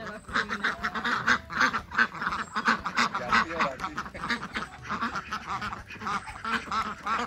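A flock of waterfowl calling, many short calls repeated rapidly and overlapping.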